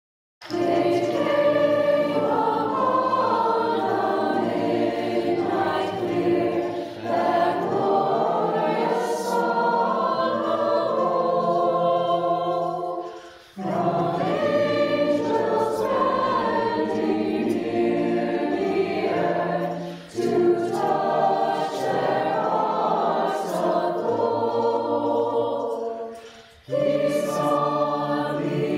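High school choir singing a carol in several parts, its voices recorded separately and mixed together as a virtual choir. The singing starts about half a second in and moves in long phrases, with a short breath between them three times.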